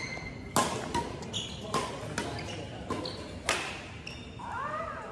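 Badminton rally: rackets striking the shuttlecock in sharp smacks about once every half-second to second, five in all, with short high sneaker squeaks on the court floor between the hits.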